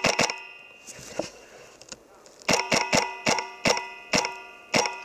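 Polarstar HPA-powered airsoft gun firing close to the microphone: a rapid string of shots ends just after the start, and after about two seconds' pause comes a run of about seven single shots, spreading further apart, each a sharp crack with a short metallic ring.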